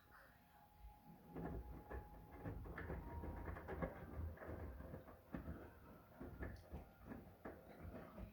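Miele washing machine at work on a whites wash: a stream of soft, irregular clicks and knocks with low thumps, starting about a second in.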